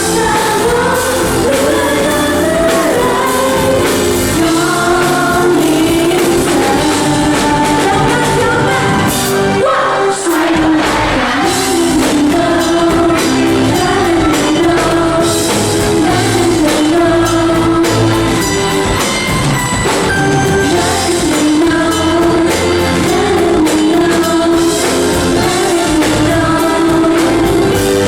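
Thai pop song performed live, sung over a band backing with a steady drum beat; the music drops out for an instant about ten seconds in.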